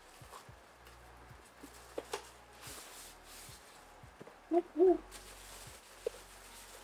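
Quiet handling of packaging, with small scattered clicks and rustles, broken a little past halfway by two short, loud hoot-like calls in quick succession.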